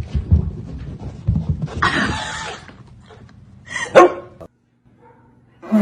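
A dog barking, with the loudest sharp bark about four seconds in. The sound cuts off suddenly shortly after.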